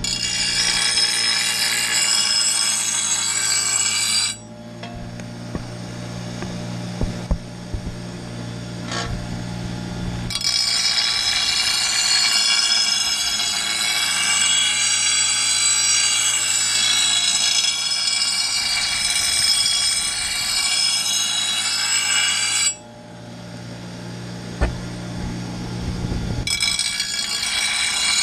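6-inch bench grinder sharpening a steel lawn mower blade: a loud, high-pitched grinding screech of steel against the stone wheel in three long passes. Between the passes, for a few seconds each time, only the grinder motor's steady hum is heard.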